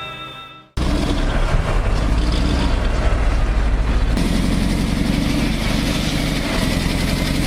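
Large bulldozer's diesel engine running loud and steady under load. About four seconds in it gives way to a deeper, rhythmic engine throb from another heavy machine. A fading tail of background music ends just before the engine noise cuts in.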